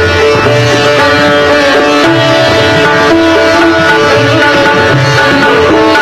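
Sitar playing a Hindustani classical melody, plucked notes moving quickly over its sympathetic-string drone, with tabla accompaniment whose low bass-drum strokes come in and out.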